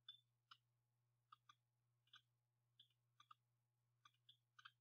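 Near silence broken by about a dozen faint, irregular computer mouse clicks, some in quick pairs, over a faint steady low hum.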